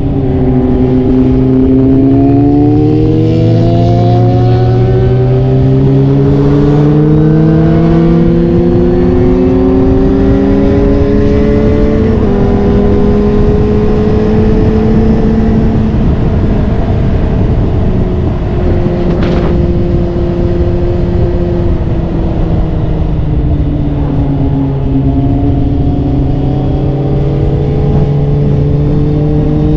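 Motorcycle engine heard on board with wind rushing over the microphone. Its pitch climbs slowly for about twelve seconds, steps briefly, then falls away through the middle and rises again near the end.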